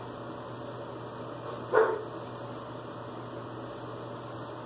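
A dog barks once, short and sharp, a little under two seconds in, over a steady low background hum.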